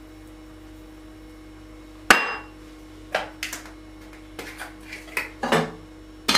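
A sharp metallic knock, then a run of clinks and knocks as a glass pot lid is handled and set onto a stainless steel pot, the loudest clink near the end as the lid goes on.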